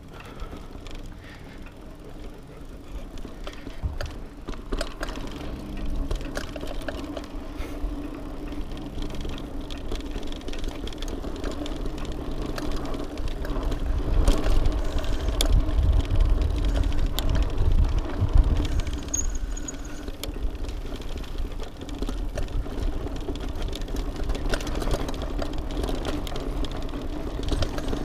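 Mountain bike ridden along a dirt trail: tyres rolling over the ground, with clicks and rattles from the bike and a low wind rumble on the microphone that grows strongest about halfway through.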